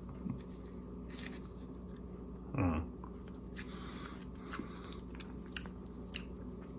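Faint mouth sounds of a person tasting sour slime candy: small lip-smacks and clicks, with one short, falling "mm" about two and a half seconds in, over a steady low hum.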